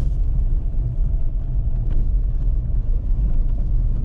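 Dacia Duster climbing a rough dirt slope in second gear, heard from inside the cabin: a steady low rumble of engine and tyres on uneven ground.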